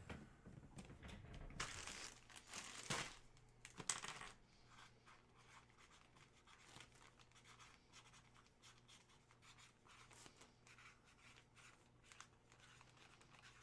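A few short crinkling rustles, like card wrappers or sleeves being handled, in the first four seconds, then near silence.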